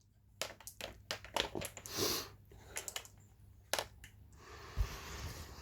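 Handling noise: a run of irregular small clicks and knocks with a rustle about two seconds in, then a faint steady hiss from about four seconds in.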